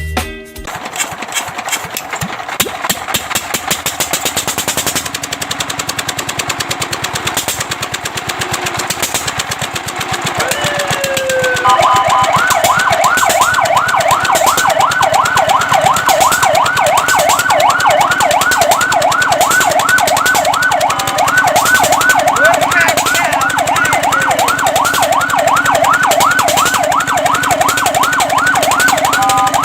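An engine running with a fast, even knocking pulse. About twelve seconds in, a fire truck's electronic siren comes in loudly in a fast yelp, warbling rapidly up and down, and keeps going.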